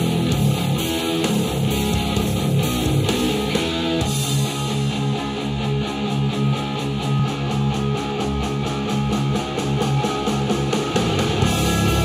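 Guitar-driven rock music played through a pair of Audioengine HD3 powered bookshelf speakers and picked up by room microphones. Right at the end the playback switches to the larger Audioengine HD4 pair.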